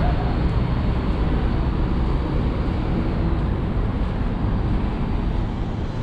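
Street ambience: a steady, even rumble of road traffic on a busy avenue.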